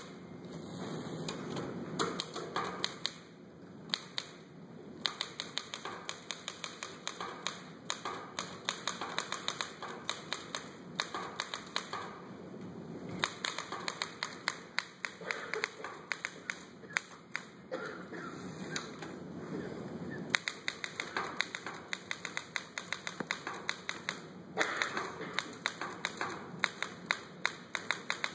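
Tap shoes striking a stage floor in rapid, irregular runs of sharp clicks, with brief pauses between phrases.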